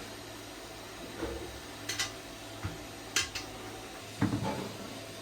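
Several light metal clinks and knocks at irregular intervals, the loudest cluster about four seconds in, over a steady low hum.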